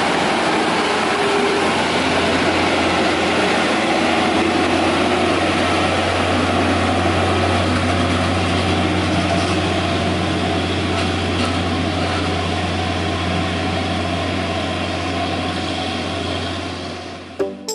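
Hino Ranger FM 260 JW logging truck's six-cylinder diesel engine running steadily under load as the loaded truck pulls up a grade, a loud, deep, steady drone. It fades away near the end.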